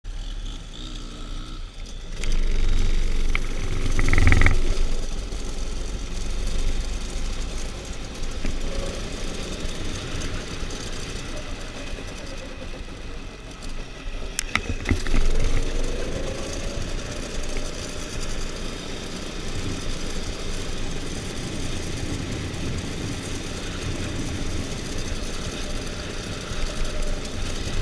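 Dirt bike engine running and revving, loudest about four seconds in and again around fifteen seconds in, where the pitch glides as it revs.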